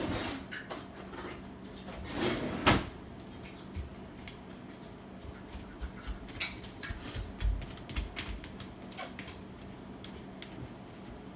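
Drop-in rifle handguard halves being fitted by hand: a knock, a scrape and a sharp knock of the parts going together between two and three seconds in, then scattered small clicks, taps and low thumps as they are seated.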